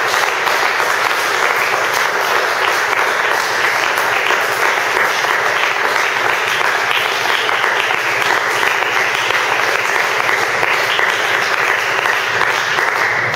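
Congregation applauding: many hands clapping together without a break.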